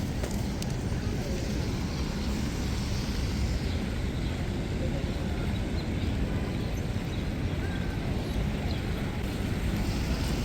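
Steady outdoor street noise: an even hiss over a constant low rumble, with no distinct events.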